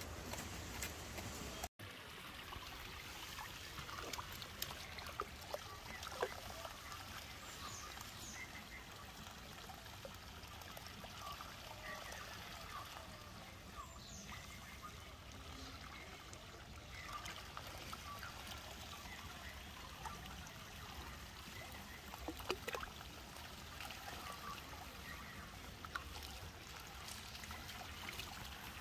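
Faint trickling and splashing of shallow muddy puddle water stirred by a young macaque's hands, with a few sharper small splashes.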